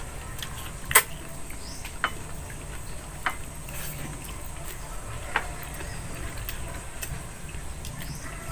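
Eating sounds of people eating fried chicken and rice by hand: four sharp clicks and smacks, the loudest about a second in, over a low steady hum.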